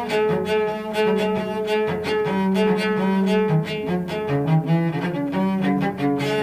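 Cello played with the bow: a high note held for several seconds over lower notes that change beneath it.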